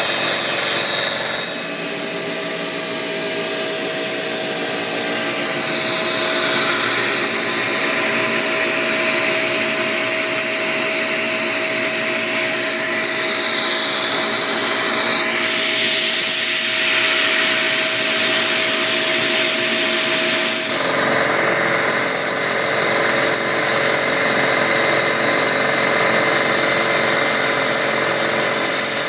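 Haas TM-1 CNC milling machine cutting Delrin plastic: the spindle runs steadily as the end mill cuts. The sound shifts about a second and a half in and again about two-thirds of the way through as the cut changes, with a steady tone held in between.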